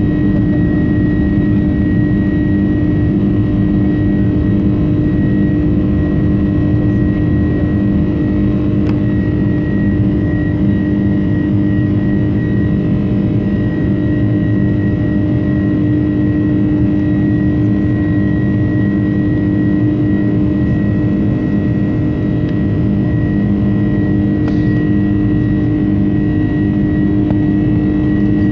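Steady jet engine and airflow noise inside the cabin of a Boeing 747-400 climbing after takeoff, a loud even rumble with a low hum and a thin high whine running through it.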